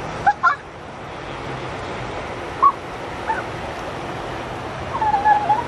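Several short honking bird calls: two quick ones at the start, two more near the middle, and a longer wavering call near the end, over steady background noise.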